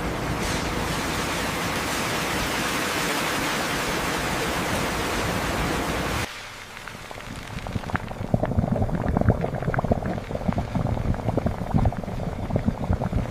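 Steady rush of liquid pouring from a pipe into a vat, which stops abruptly about six seconds in. It is followed by liquid bubbling and fizzing, with many small pops.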